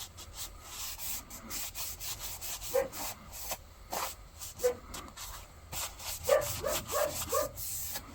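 Sandpaper rubbed by hand over the rusty steel of old hand shears, with oil, in many quick scratchy strokes to take off surface rust.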